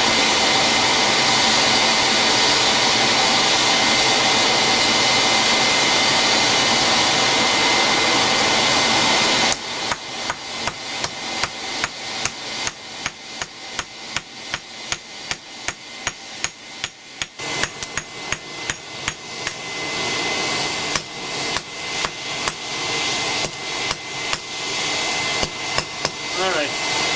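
Steady rush of the ground forge's air blower for about the first third, then a hand hammer striking a coil-spring steel bar laid on an old sledgehammer head used as an anvil. The blows come rapidly, about two to three a second, with the blower running again more quietly behind them from a little past halfway.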